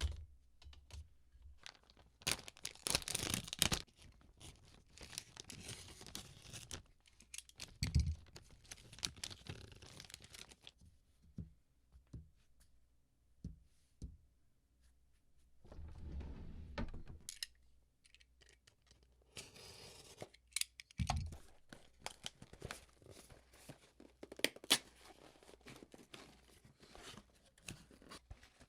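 Hands working with keyboard parts and their packaging: several stretches of tearing and crinkling, like film or packaging being peeled and handled, broken by many small clicks and a few dull thuds, close up in a small room.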